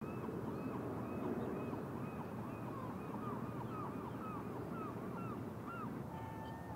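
A flock of geese honking, many short calls in quick succession over a steady background of water and wind noise, with one longer, held note near the end.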